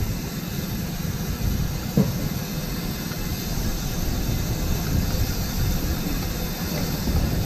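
Steady rumble of wind buffeting the microphone of a bicycle in motion, with a faint short chirp about two seconds in.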